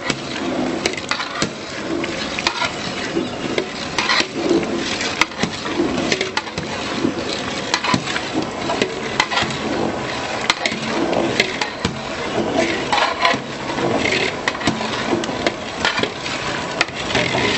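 Long metal ladle stirring and scraping thick semolina (rava kesari) as it cooks in hot water in a large aluminium pot, with frequent knocks and clicks of the ladle against the pot over a steady hiss.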